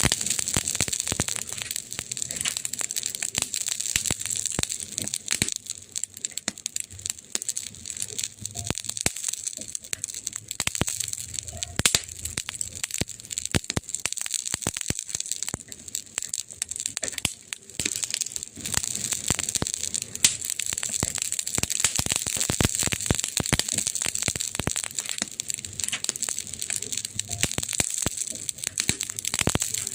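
Wood fire crackling steadily: a dense run of small snaps and pops over a soft hiss, with a few louder pops here and there.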